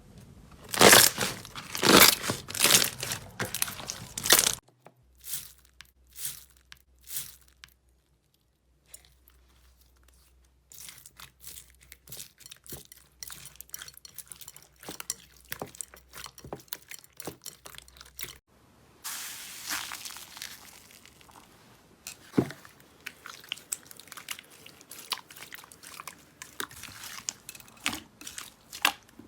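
Crunchy slime being squeezed and pressed by hand, crunching and crackling. Loud crunches come first, then after a short pause a long run of dense, fine crackling.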